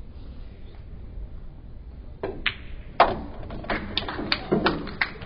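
Pool shot: the cue tip strikes the cue ball a little past two seconds in, then a loud sharp clack of balls colliding about three seconds in, followed by a run of smaller clicks and knocks as the balls run and one is pocketed.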